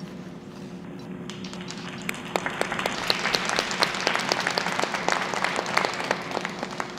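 Audience clapping, building up about two seconds in and dying away near the end.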